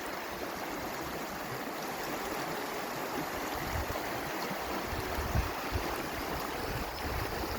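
Steady rush of flowing river water at the falls, with a few low rumbles near the middle.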